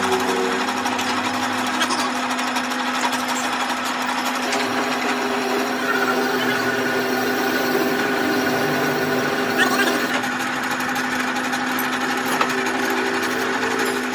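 Metal lathe running with a steady hum while the cutting tool turns a spinning steel workpiece held in the chuck.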